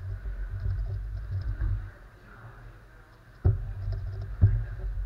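Magnetic X-Man Galaxy Sculpted megaminx being turned quickly by hand, its pieces clicking and clacking, with low thuds carried through the table. There is a brief lull in the middle, then two sharper knocks about a second apart near the end.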